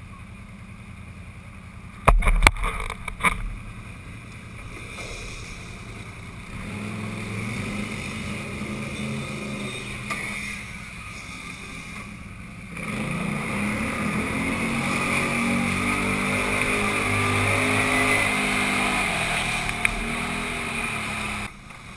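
ATV (quad) engine running while under way, its pitch wavering with the throttle and louder through the second half, before it drops off abruptly near the end. A few loud knocks come about two seconds in.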